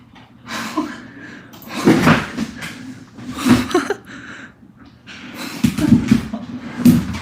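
Speedcube being turned fast, plastic layers clacking in quick bursts, with the loudest clatter about two seconds in and again near the end.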